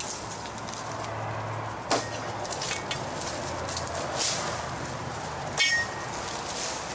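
A few sharp knocks and clicks over a steady hiss: a loud one about two seconds in, and another near the end that rings briefly, with faint crackling between.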